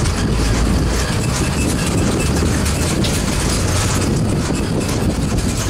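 A vehicle in motion: steady low rumble of engine and road noise.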